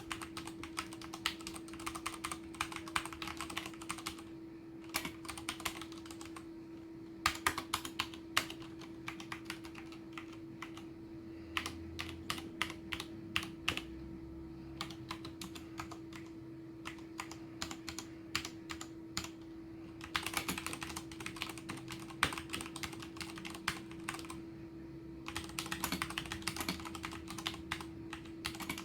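Ducky One TKL mechanical keyboard with brown switches being typed on: runs of quick keystrokes with a few short pauses and a sparser stretch in the middle.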